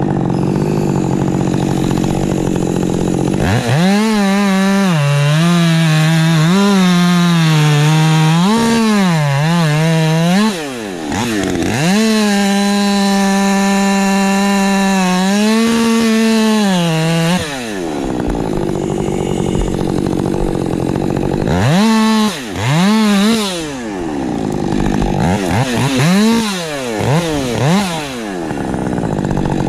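Ported Husqvarna 550 XP Mk II chainsaw with a 20-inch bar at full throttle, cutting wood: the revs sag under load and pick up again, with several drops as the throttle is let off between cuts. A steadier, lower engine sound runs for the first few seconds before the saw revs up.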